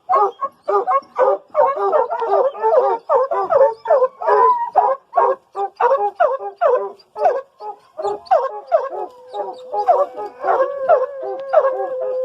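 Pack of hunting hounds barking rapidly and continuously, several voices overlapping. About eight seconds in, one dog starts a long, drawn-out howl that is held steady under the barking.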